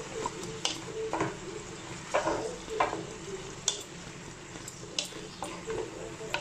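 Wooden spatula stirring and scraping chopped vegetables in a pan of hot oil: a steady sizzle broken by irregular scrapes and knocks against the pan as they are sautéed.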